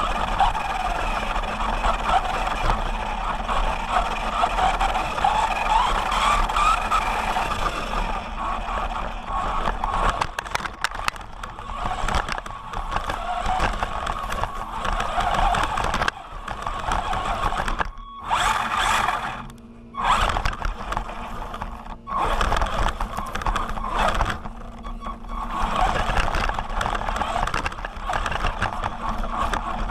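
Onboard sound of a Remo Hobby SMAX 1/16 RC truck's brushed electric motor whining, its pitch rising and falling with throttle. Tyre noise and chassis rattle and scraping come from the truck driving over pavement and then rough grass. The sound drops out briefly a couple of times past the middle.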